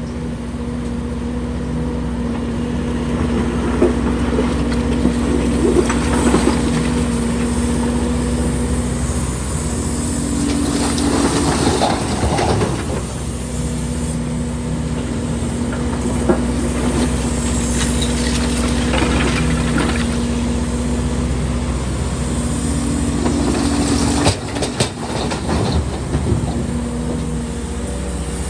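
Excavator diesel engine running steadily, its pitch rising twice as the hydraulics take load, with scattered scraping and clanking as the bucket works through concrete rubble.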